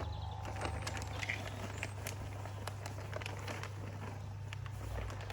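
Peanuts being shaken out of a bag into a tub, making scattered light clicks and rattles over a steady low hum.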